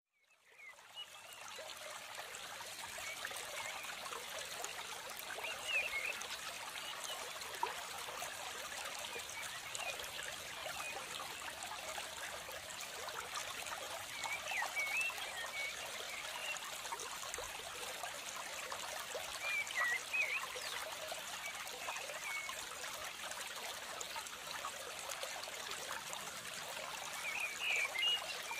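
Water trickling steadily, like a small stream, fading in at the start. Short bird chirps come through it four times.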